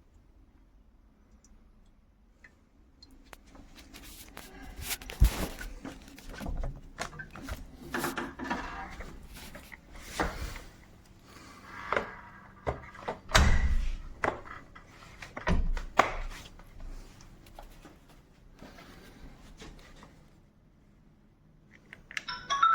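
Irregular knocks, clicks and thunks of hard plastic parts being handled, fitted and set down, loudest about five and thirteen seconds in. These are the plastic parts of a wet-dry vacuum cleaner being cleaned and reassembled.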